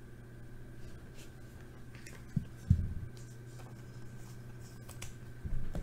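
Topps Chrome baseball cards handled in the fingers: light rubbing and sliding of the glossy card stock as one card is moved behind another. There are two short taps a little over two seconds in and a couple more near the end, over a steady low hum.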